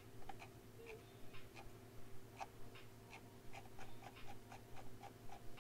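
Faint clicking of a computer mouse and its scroll wheel, irregular at first and then about four clicks a second in the second half, over a steady low electrical hum.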